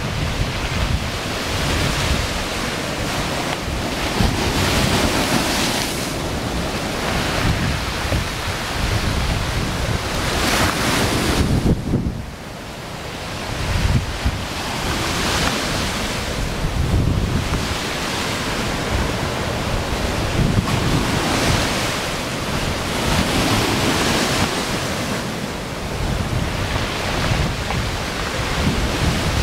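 Rough storm surf breaking on the shore and against a seawall, with gusting wind ahead of a hurricane buffeting the microphone. The wind comes in swells every few seconds, with a brief lull about twelve seconds in.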